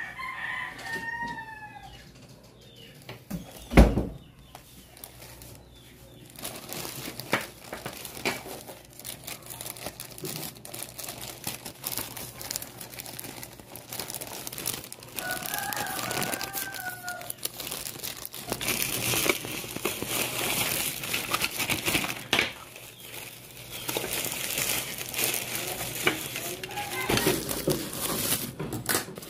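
Plastic courier bag and bubble wrap being handled and opened, crinkling and rustling, with a single loud thump about four seconds in.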